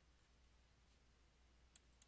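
Near silence with two computer mouse clicks near the end, a quarter second apart.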